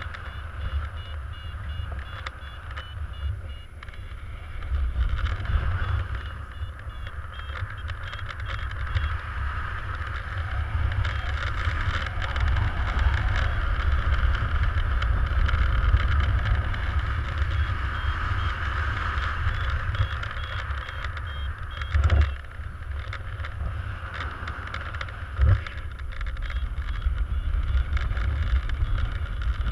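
Airflow of paragliding flight buffeting the camera's microphone, a steady rushing wind noise. A paragliding variometer beeps in quick even pulses in the first few seconds and again past the middle. There are two brief thumps in the last third.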